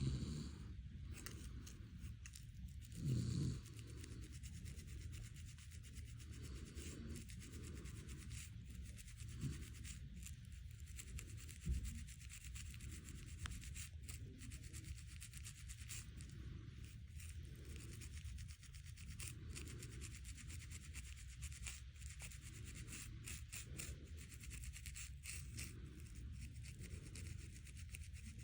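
Fingernails scratching a person's scalp: a faint, continuous rubbing and scratching made of many small strokes. A low bump comes about three seconds in.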